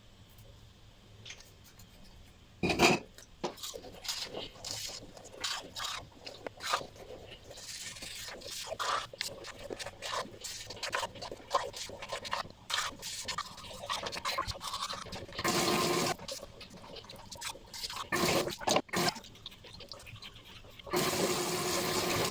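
Teeth being brushed with a toothbrush: quick, irregular scrubbing strokes. A tap runs twice in short bursts, once near the middle and again near the end.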